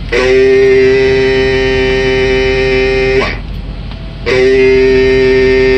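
A steady pitched tone sounds twice, each about three seconds long with a second's gap between, as a CB radio driving a 24-pill amplifier is keyed down to transmit; the pitch dips slightly as each tone stops.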